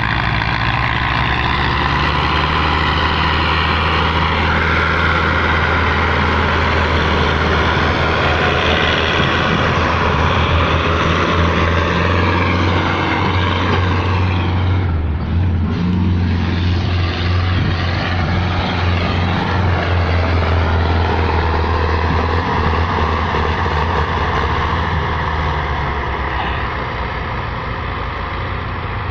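Belarus tractors' diesel engines running loudly and steadily, with a brief change in note about halfway through.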